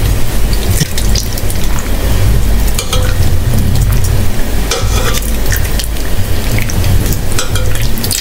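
Broth being ladled from an enamel pot into a ceramic bowl with a plastic ladle: liquid splashing and dripping, with short clicks of the ladle against the pot, over a steady low rumble.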